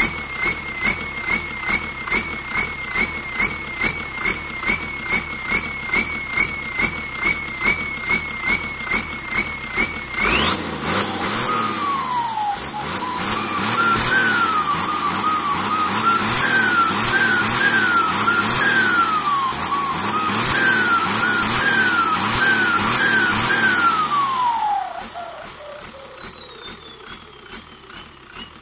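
Ford tractor engine with a new AR50 turbocharger, first running steadily with a thin turbo whistle. About ten seconds in it is revved up and down repeatedly, and the turbo whine rises and falls with each blip of the throttle. Near the end the throttle is let off and the turbo spools down, its whine falling steadily as the engine settles.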